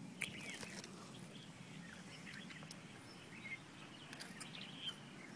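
Birds chirping in short, scattered calls over a faint low steady hum.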